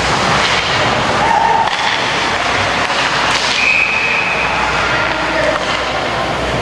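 Ice-rink game ambience: a steady din of crowd noise in the arena, with a few short shouts and one held high note about halfway through.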